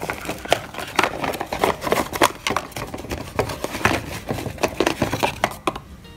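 Rustling and crinkling of unboxing packaging, a dense run of irregular small crackles and taps, as a USB charging cable is taken out of the GoPro HERO8 box.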